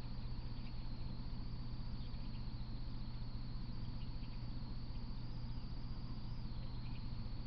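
No train passing: a steady low hum and a steady high whine, the trail camera's own recording noise, with faint scattered chirps.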